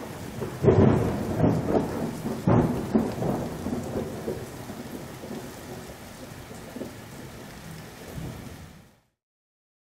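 Thunder rumbling over steady rain: two loud claps about one and two and a half seconds in, then the rain and rumble fade and cut off suddenly near the end.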